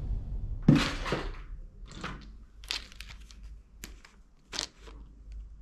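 Plastic toy guns, knives and other toys clattering and knocking against each other as hands rummage through a cardboard box full of them and lift out a toy pair of binoculars. A string of separate sharp rattles, the loudest about a second in.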